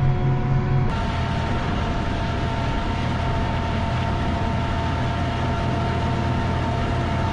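John Deere 8270R tractor's six-cylinder diesel engine running steadily while pulling a seed drill, with a steady whine over the drone. The sound shifts abruptly about a second in.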